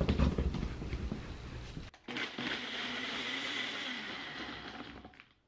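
Handling knocks as the blade lid is twisted onto a Ninja personal blender cup and fitted to the base. About two seconds in, the blender motor runs steadily, crushing ice and frozen banana, and trails off near the end.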